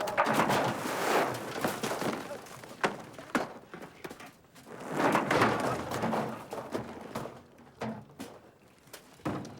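Film sound effects of debris coming down after an explosion: scattered thuds and knocks, with rushing noise that swells at the start and again about five seconds in, then fades.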